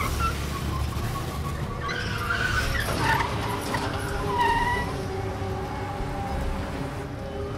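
Dark film-score music: a low rumbling drone under sustained tones, with a few short gliding high notes about two to five seconds in.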